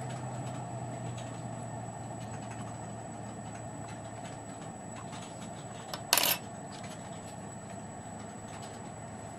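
Steady background hum with faint light ticks, and one sharp click about six seconds in.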